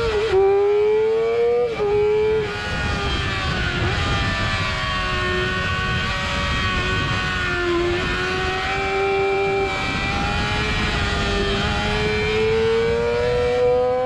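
Sport motorcycle engine running at high revs, heard from onboard over wind rush. The note drops in steps near the start as the bike slows for a corner, holds lower with small dips through the bend, then rises steadily as it accelerates out near the end.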